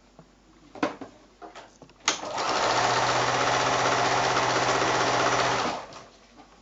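Electric sewing machine stitching a seam through patchwork squares at a steady speed for about three and a half seconds. It starts with a click about two seconds in and stops near the end. A few small clicks come before it.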